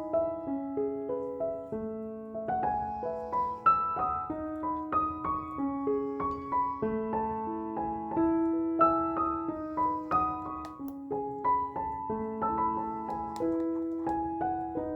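Background music: a piano playing a gentle melody over chords, note after note.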